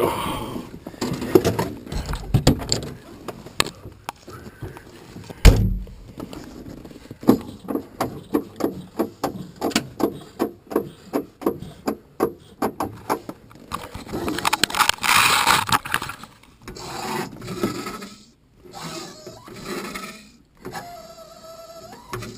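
Mechanical clicks and knocks of pre-start cockpit handling in a floatplane. They include a run of evenly spaced clicks, about three a second, for several seconds, then a brief hiss. Near the end there is a short steady electrical tone.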